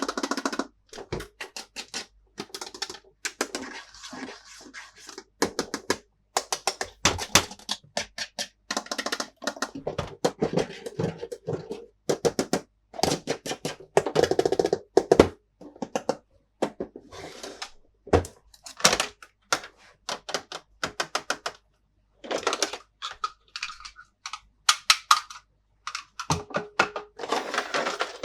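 Plastic toy pieces and packaging handled close to the microphone: a steady run of clicks, taps and knocks, with short stretches of rustling.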